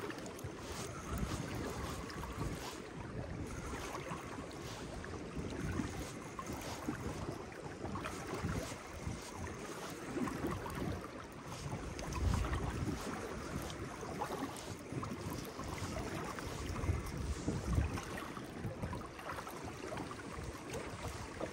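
Strong wind buffeting the microphone in gusts, over choppy waves lapping and slapping against an inflatable boat.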